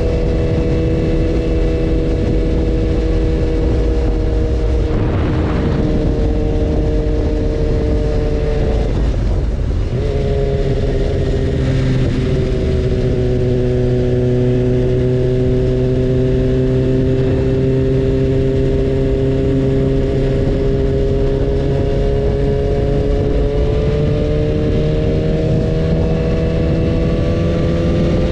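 BMW S1000RR inline-four engine running at steady revs over a constant rushing noise. About nine seconds in the note breaks briefly and comes back lower in pitch, then climbs slowly again near the end.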